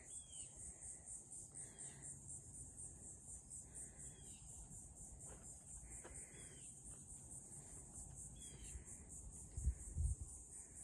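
Insects calling in a steady, high-pitched chorus that pulses several times a second, with short falling chirps repeating every second or two. A couple of low thumps come near the end.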